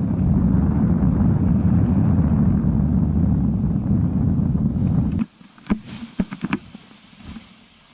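Wind buffeting the microphone in flight, a loud low rumble that cuts off suddenly about five seconds in. A few sharp clicks follow.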